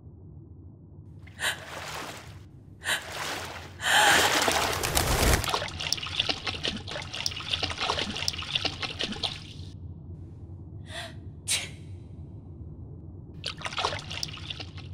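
A person sneezing: two sharp gasping in-breaths, then a loud sneeze about four seconds in, followed by a few seconds of hissing noise. More short gasps and another burst come near the end.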